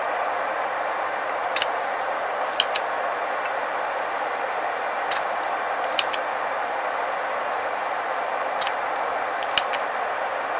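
A steady, even hiss, with a few light, sharp clicks scattered through it.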